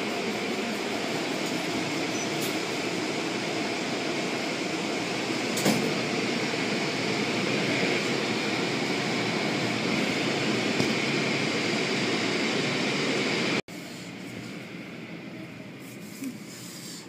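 Automatic car wash brushes scrubbing over the car and water spraying, heard from inside the car: a steady, dense wash noise. About fourteen seconds in it cuts out abruptly and comes back much quieter.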